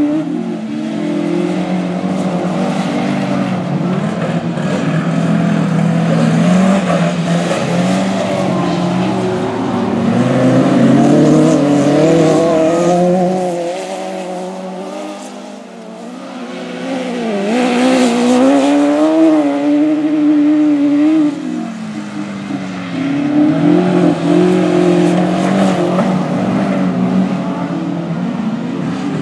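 Autograss race car engines revving hard on a dirt track, rising and falling in pitch as the cars brake and accelerate through the bends. The sound fades for a few seconds past the middle, then swells again as the cars come close.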